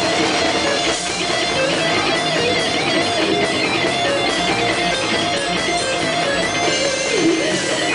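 Live rock band playing, led by an electric guitar on a melodic solo line whose notes change quickly over the rest of the band.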